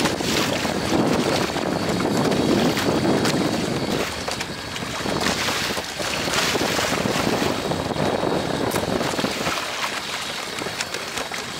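Strong wind buffeting the microphone over choppy water rushing and splashing against the kayak's hull, a little louder in the first few seconds.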